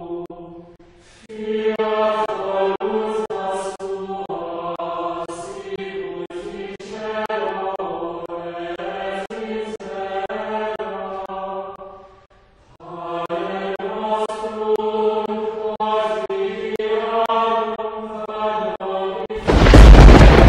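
Chant-like vocal music with held, choir-like voices in long phrases, breaking off briefly about a second in and again about twelve seconds in. Near the end a sudden, much louder burst of noise cuts in, heaviest in the low end.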